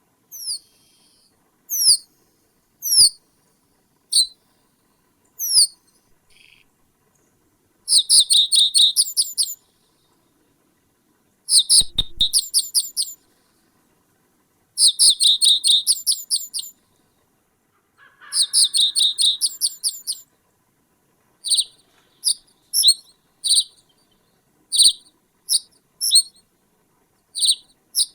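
A small bird calling close to the microphone with high, sharp chirps. At first they come singly, then in four rapid chattering series of a second or two each, then as quick single chirps near the end. A brief low thump sounds about halfway through.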